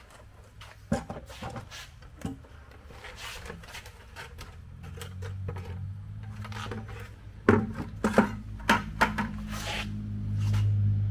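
Handling noises as a cured concrete seat with chain legs is pulled out of a plastic 5-gallon bucket mould: the plastic bucket rubbing and knocking, chain links rattling, and a quick run of sharp knocks past the middle. A steady low hum builds in the second half.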